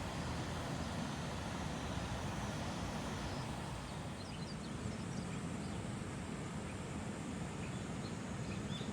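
Small birds chirping, short high calls that come in from about halfway and repeat several times near the end, over a steady low rushing background noise.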